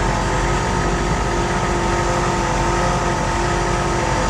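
Military Humvee's diesel V8 engine running at a steady pace as it drives through floodwater, a low drone with a steady whine above it.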